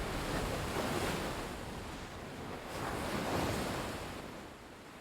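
Sea waves washing ashore, two swells of surf about two seconds apart, fading toward the end.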